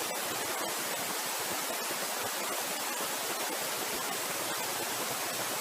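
Steady hiss of background noise, with a few faint ticks.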